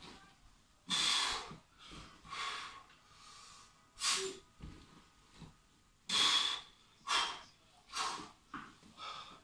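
Heavy, forceful breaths blown out by a man straining through one-arm kettlebell presses, coming roughly once a second and uneven, some short and sharp, a few longer and louder.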